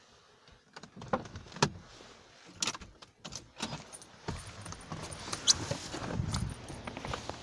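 Handling noise inside a car: sharp clicks and jangling keys, then rustling and the driver's door opening as someone climbs out.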